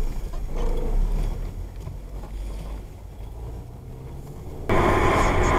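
Low engine and tyre rumble of a car driving slowly, heard from inside the cabin. Near the end it gives way abruptly to much louder, steady road noise.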